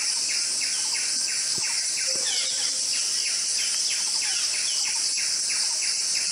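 Tropical forest ambience: a steady high insect drone with short falling chirps repeating about two and a half times a second underneath it, and a couple of faint ticks about two seconds in.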